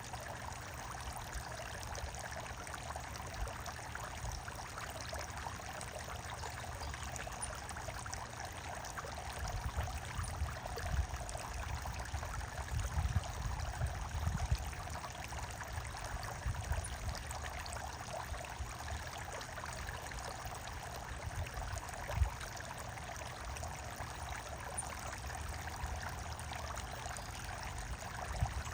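Running water trickling and splashing steadily. Several low rumbling bumps come in about a third of the way through and again briefly after the middle.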